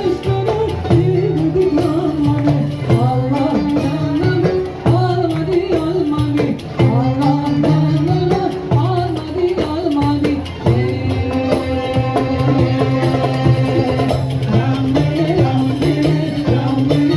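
Middle Eastern folk ensemble music: a sliding, ornamented melody with singing over oud, kanun, violin and a steady darbuka rhythm.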